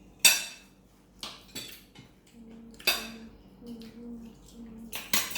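Dishes and cutlery clinking against plates at a meal: a sharp clink just after the start, lighter clinks around one and a half seconds in, another sharp one near three seconds, and a last pair near the end.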